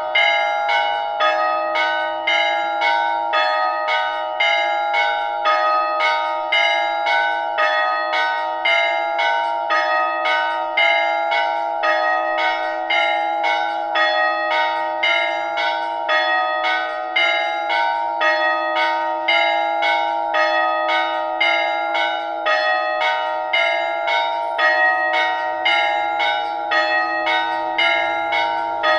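Village church bells ringing a steady, fast peal, several bells struck in quick even strokes, about two or three a second, their tones ringing on and overlapping.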